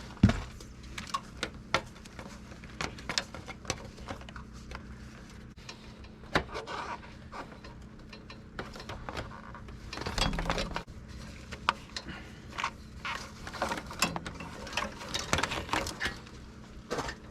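Hands handling and routing electrical wires along the tractor: scattered clicks, light rattles and rustles, with a sharp click just after the start and busier handling about ten seconds in and again near fourteen to sixteen seconds.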